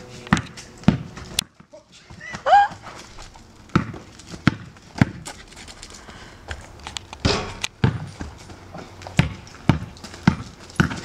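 Basketball dribbled on a hard outdoor sport court surface, the bounces coming at uneven intervals, with one short high yelp a little over two seconds in.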